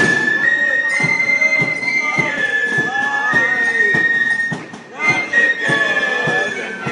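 A flute band playing a march tune together on side-blown flutes, the high melody stepping from note to note, with regular percussive beats underneath. The melody breaks off briefly about four and a half seconds in, then carries on.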